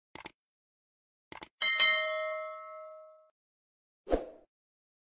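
Sound-effect bell ding: a pair of quick clicks, then two more clicks and a bright bell ding that rings out for about a second and a half. A single dull thump comes near the end.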